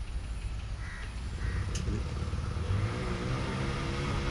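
Hero XPulse 200T motorcycle's single-cylinder engine running on the move, with wind rumbling on the microphone. The engine note comes up more strongly about two-thirds of the way in, wavering in pitch.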